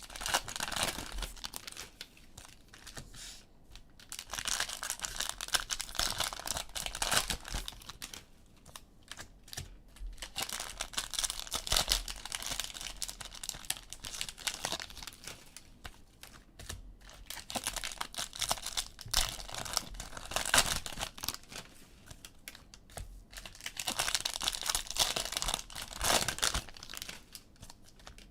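Cellophane wrapping of a trading-card cello pack being torn and crinkled by hand, in spells of a few seconds with short quiet breaks between.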